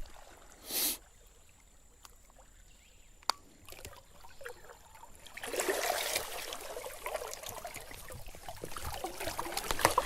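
Creek water splashing and trickling, starting about halfway through and running on, with a short burst of noise and a sharp click earlier.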